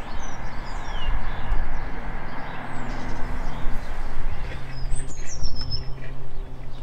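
Small birds chirping, with a thin falling whistle about a second in and a longer descending call around five seconds in, over a steady low rumble.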